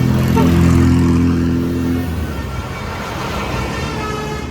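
Bus horn sounding one deep, steady chord that starts suddenly and cuts off about two seconds in, followed by the passing bus's engine and road noise.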